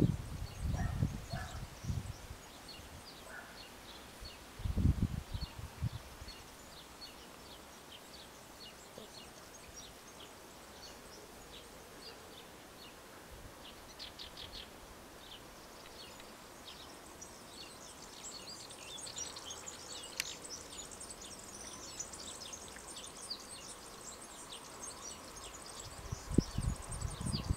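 Birds chirping and twittering over quiet open-air background, the chirping growing busier in the second half. A few low rumbling gusts of wind on the microphone come at the start, about five seconds in and near the end, and a faint steady hum sets in during the last few seconds.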